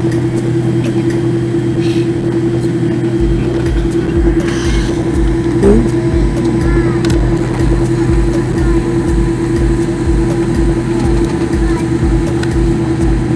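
Cabin noise inside a Boeing 787-8 rolling on the ground after landing: the steady hum of the idling engines and cabin air systems. From about three seconds in, a low, regular thumping runs underneath.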